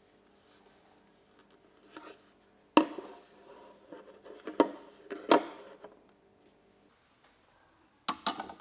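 Hard plastic knocks and clicks from a small 3D-printed holder being handled and test-fitted: a light tap, three sharp knocks about a second or two apart, then a quick double click near the end.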